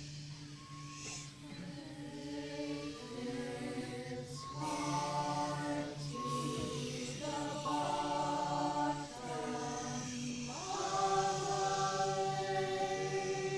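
Mixed choir singing long held chords over a steady low drone, with a fuller chord swelling in about four and a half seconds in and, near the end, voices sliding upward into a loud sustained chord.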